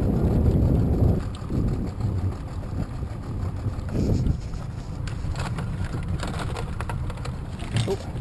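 Low steady rumble of a small boat's outboard motor running slowly along a trotline, with wind buffeting the microphone hard in the first second and again briefly around the middle. Light clicks and knocks come near the end.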